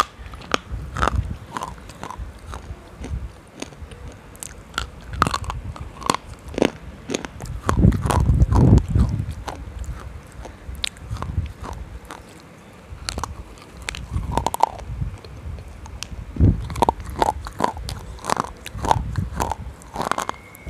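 Close-miked biting and crunching of a hard, brittle, dark grey substance: a run of sharp snaps as the teeth crack it, with the heaviest crunching and chewing about eight to nine seconds in.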